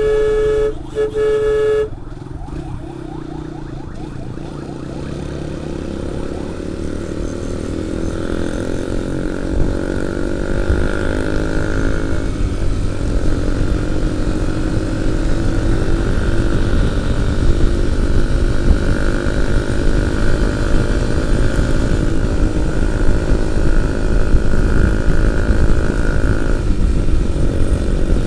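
Two short horn blasts, then a motorcycle engine running under wind rush, its pitch climbing slowly and steadily as the bike gathers speed.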